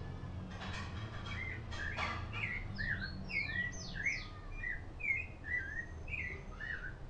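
A songbird singing a fast, varied run of sweeping, chirping notes, starting just under a second in, over a steady low rumble.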